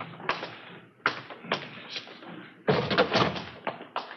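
Radio-drama sound effect of footsteps: hard shoes tapping on a hard surface at a walking pace, two or three steps a second, with the steps coming closer together about three seconds in.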